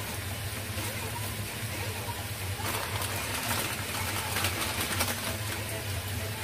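Food sizzling in a pan on a gas stove over a steady low hum, the crackling getting busier about three seconds in.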